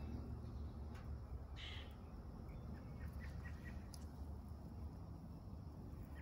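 Resting goslings giving faint, soft sleepy chirps, a few short ones clustered about three seconds in, over a steady low background hum.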